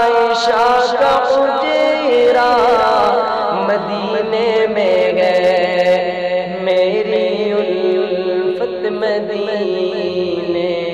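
A man singing an Urdu naat solo, a slow devotional melody in long held, ornamented notes, over a steady low drone.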